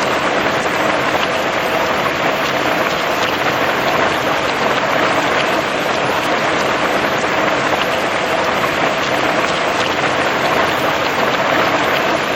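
Steady rain falling: an even hiss with scattered small drop ticks, unchanging throughout.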